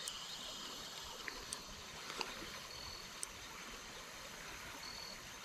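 Shallow creek water running over a gravel bed, a faint steady wash, with a few small clicks over it.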